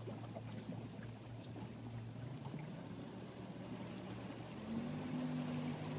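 A steady low engine hum under a faint wash of wind and water noise; the hum shifts up in pitch and gets slightly louder about five seconds in.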